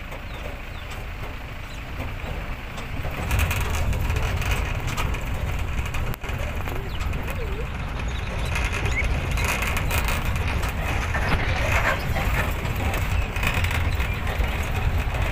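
Footsteps crunching over dry fallen leaves and twigs, with a low rumble of wind or handling noise on the microphone that gets louder about three seconds in.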